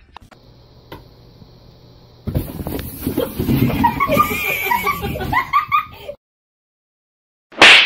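Faint room hum, then from about two seconds in a person laughing and talking for several seconds; a sudden loud noise just before the end.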